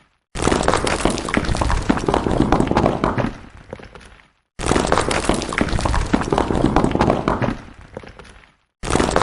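Stones falling and clattering in a dense rush of many knocks, starting suddenly and trailing off over about four seconds. This happens twice, and a third fall starts near the end.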